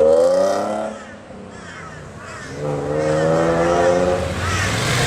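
A car engine revved twice: the pitch climbs for about a second, drops away, then rises again for a longer rev a couple of seconds later.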